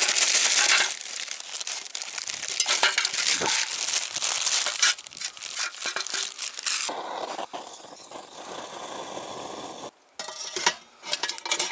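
Plastic wrapper of a charcoal fire-starter packet crinkling and rustling as a hand works it over a small charcoal pot, dense and crackly for most of the first seven seconds. Near the end come a few sharp knocks, as of the metal pot being set down.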